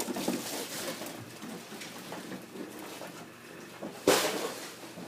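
Faint handling and shuffling noise, then a single sharp knock about four seconds in.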